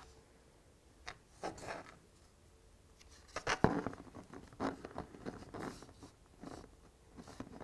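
Plastic parts of a Peco SS80 viaduct kit being handled and pressed together as a wall-facing piece is fitted into the arch: a scatter of short clicks and scrapes, the sharpest knock about three and a half seconds in.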